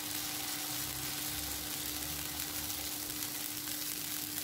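Pancake batter sizzling in a hot, buttered seven-cup pan, a steady soft hiss with a faint low hum underneath.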